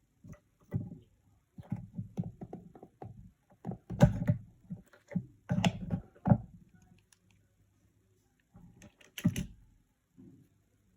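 Handling noise from a mobile phone and its parts being worked on a bench: a run of light knocks, clicks and taps, with sharper knocks about four, six and nine seconds in.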